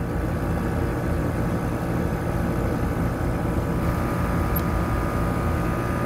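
Outdoor air-conditioner condensing unit running steadily, its compressor and condenser fan motor both on. The compressor is running normally and drawing about 11 amps now that a burnt wire connection has been fixed.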